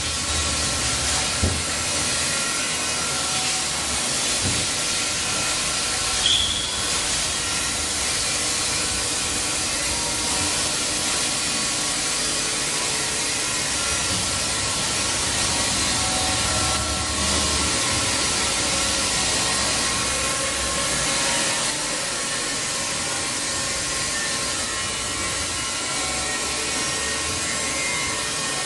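Steady hiss of machinery running in a workshop, with faint steady hums underneath. A short high chirp sounds about six seconds in.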